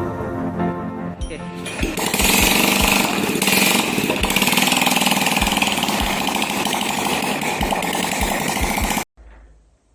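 Small single-cylinder four-stroke motorcycle engine of a restored 1993 Honda Astrea running with a rapid, rattling beat, cutting off suddenly about nine seconds in.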